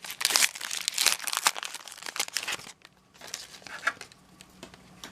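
Trading card pack wrapper being torn open and crinkled: dense crinkling for nearly three seconds, then a short lull and quieter, scattered crackles as the pack is handled.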